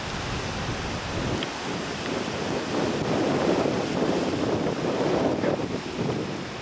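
Wind gusting across the microphone, a steady rushing noise that swells for a few seconds in the middle.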